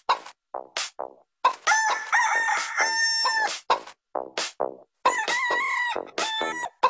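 Chicken calls: a run of short clucks, then a long held crowing call about one and a half seconds in, more short clucks, and a second long call from about five seconds.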